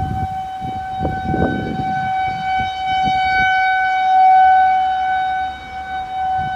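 Outdoor tornado warning siren sounding one steady wail, swelling louder for a moment a little past the middle: the alert for a tornado warning in effect.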